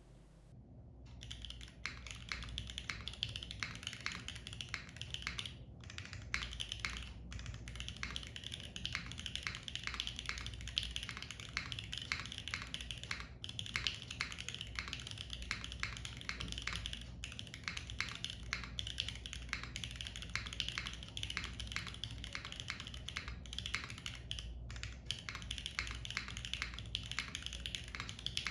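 Continuous fast typing on an ai03 Vega 65% gasket-mount mechanical keyboard with lubed Gateron KS-3X1 Milky Yellow linear switches, an aluminium plate and GMK keycaps, recorded through a camera's built-in microphone. The stream of key clacks starts about a second in and runs with only a few brief pauses.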